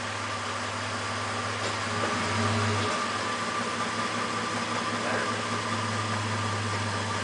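1999 Toyota Tacoma pickup's engine idling steadily, with a slight swell about two seconds in.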